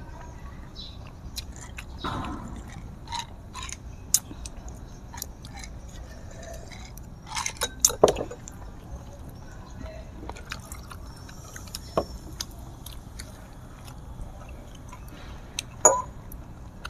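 Eating sounds: chewing and drinking, with scattered light clicks of chopsticks and glassware against plates and the table. A few sharper knocks come about 4, 8, 12 and 16 seconds in.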